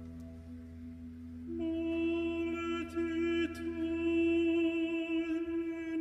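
Slow background music of long held notes, with a new, louder note coming in about one and a half seconds in and held to the end.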